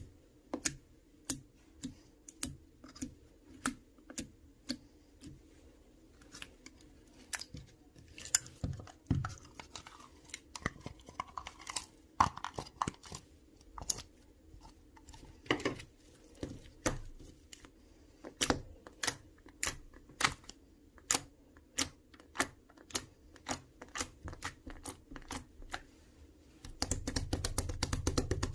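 Clear, watery jelly slime being squished and stretched by hand, giving irregular sharp wet clicks and pops about once or twice a second, with a denser run of crackling near the end.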